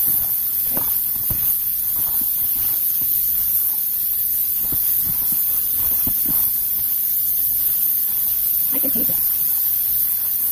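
Tap water running steadily from a kitchen faucet onto salted napa cabbage in a plastic colander, with hands rubbing and turning the wet leaves to rinse the salt off.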